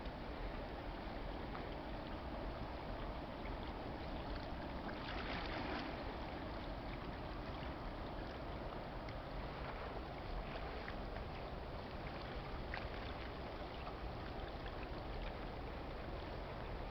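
Steady low rumble and wash of the lake freighter Algoma Niagara passing up the river, mixed with wind and water noise, and a brief louder hiss about five seconds in.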